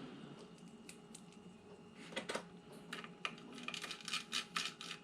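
An irregular run of sharp clicks and taps, like hard plastic parts or keys being handled, starting about two seconds in and coming thickest near the end.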